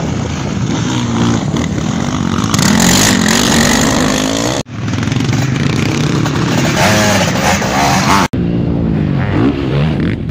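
Off-road racing engines of sidecar motocross outfits, quads and motocross bikes revving hard on a dirt track, their pitch climbing and dropping with the throttle. The sound breaks off sharply twice, about four and a half and eight seconds in, where shots are cut together.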